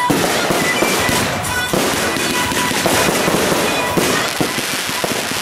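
Fireworks barrage going off without a break: dense, rapid crackling and popping of many shots, with rising glitter comets and bursting stars.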